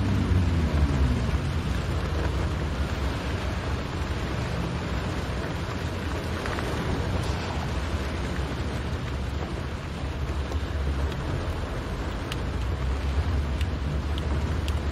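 Inside a car driving in rain: a steady low rumble of engine and tyres on the wet road under an even hiss of rain. The engine's tone drops away in the first second or so as the car eases off, and a few faint ticks come near the end.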